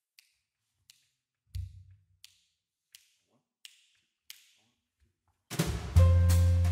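A steady count-off of sharp light clicks, about one every three quarters of a second, with a single low thump about a second and a half in. About five and a half seconds in, the jazz trio comes in together: electric bass, grand piano and drum kit with cymbals.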